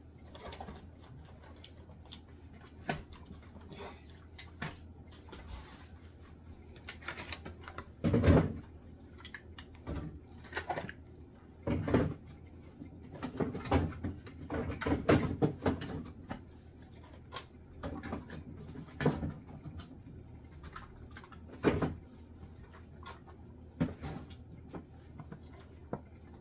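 Irregular clicks, knocks and clatter of containers being handled and set down on fridge shelves, likely yogurt cups being sorted, with the louder knocks about eight and twelve seconds in.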